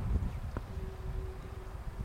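Wind rumbling on the microphone outdoors, with a single sharp click about half a second in.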